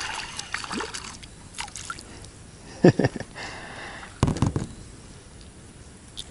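A small hooked perch splashing at the surface as it is reeled to the boat and swung out of the water, with two short loud splashes about three and four seconds in.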